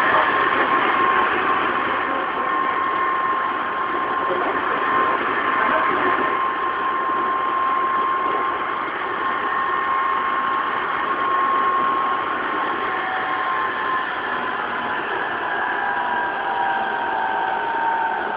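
Tokyu 2000 series electric train running, heard from inside the car: steady rumble and hiss of wheels on rail, with the whine of the traction motors and Hitachi GTO-thyristor VVVF inverter. The whining tones hold steady, then sink slowly in pitch over the last few seconds.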